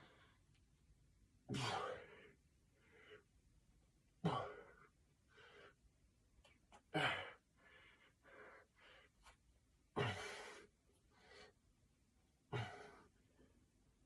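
A man breathing hard during push-ups: a forceful exhale about every two and a half to three seconds, five in all, with quieter breaths in between.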